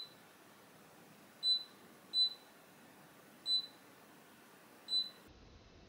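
Newall NMS300 digital readout beeping as its keypad buttons are pressed, one short high beep per keypress while the pitch-circle hole settings are keyed in. Four beeps, unevenly spaced.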